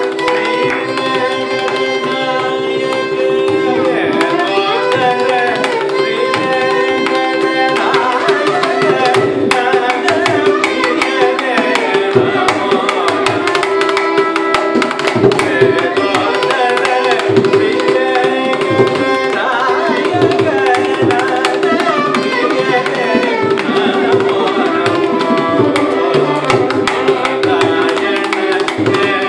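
Carnatic classical music: a male vocalist singing with violin accompaniment and mridangam drumming, over a steady drone.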